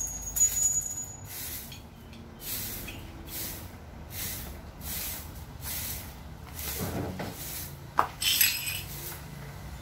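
Metal tools and engine parts being worked by hand: a repeated rasping stroke about every two-thirds of a second, then a sharp metallic click about eight seconds in followed by a bright ringing clink.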